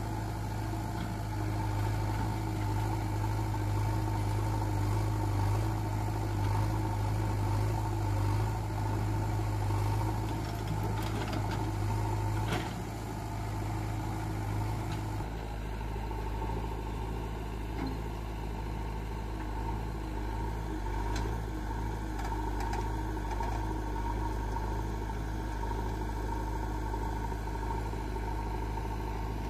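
Diesel engines of a JCB backhoe loader and a Mahindra 575 DI tractor running steadily while the loader works. There is a single knock a little before halfway, and the low hum drops about halfway through.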